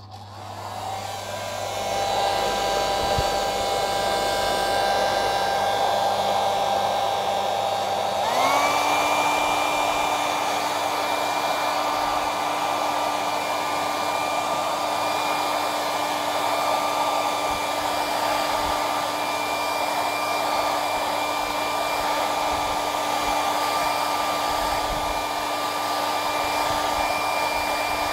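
Handheld hot-air blower switched on and running steadily as it blows hot air onto a knit fabric so that its shrinking yarn contracts. The whoosh of the air carries a steady motor whine. About eight seconds in, the whine steps up to a higher pitch and holds there at the faster speed.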